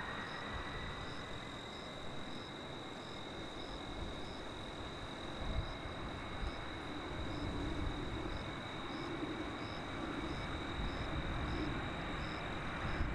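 Jet engines of the L-1011 TriStar carrier aircraft running on the runway before takeoff: a steady high whine and a second whine slowly rising in pitch as the engines spool up, over a low rumble. A faint chirp repeats a little faster than once a second.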